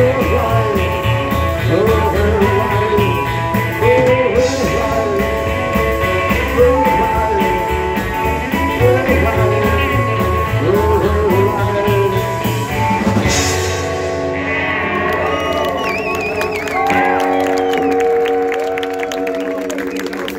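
Live rock'n'roll band playing: upright bass and drums keeping a steady beat under acoustic and electric guitars, a singing voice and harmonica. About 13 seconds in the beat drops out and the song closes on held notes with sliding pitches.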